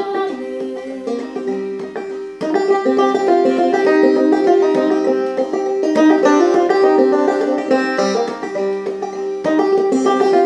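Banjo played clawhammer style: a rhythmic instrumental passage of plucked and brushed strings, quieter at first and picking up in volume about two and a half seconds in.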